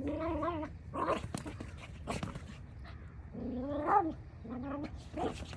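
A dog making short whining, grumbling vocalizations while playing with her toys, four brief calls with one rising in pitch about four seconds in. A few light clicks sound between them.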